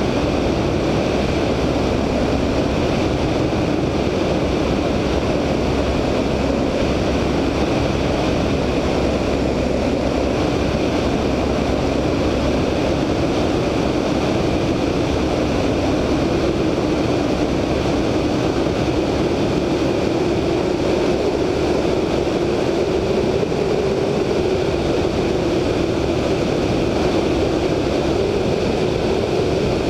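Siemens-Halske Sh 14A seven-cylinder radial engine of a VL Viima II biplane running steadily in cruise flight, mixed with the rush of airflow over the wingtip-mounted microphone.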